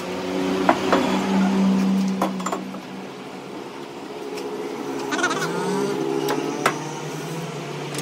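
Metal clinks and knocks as a gear shaft is set into a lathe's four-jaw chuck and the chuck key is worked, with several sharp strikes. Under them runs a steady droning hum that rises in pitch about halfway through.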